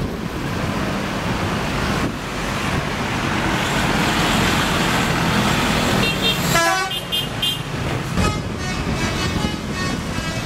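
Several seconds of bus engine and road noise, then a telolet bus horn, the multi-tone musical horn of an Indonesian bus, playing a quick tune of stepping notes that repeats until the end.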